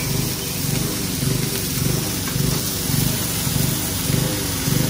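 Small gasoline lawnmower engine running unevenly, its low note surging about twice a second, a mower that sounds like it's on its last leg.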